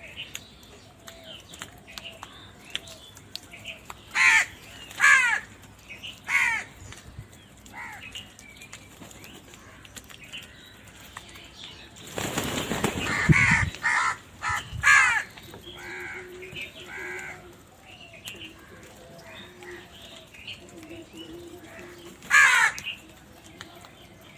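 Crows cawing: loud, harsh caws in short bouts from several birds, with quieter calls between them. A burst of rustling noise, like wings flapping, comes about halfway through.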